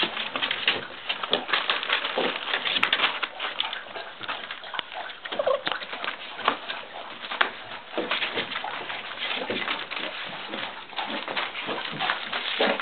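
Puppies scuffling on a newspaper-covered floor, the paper crinkling and rustling under their paws, with small puppy whines mixed in.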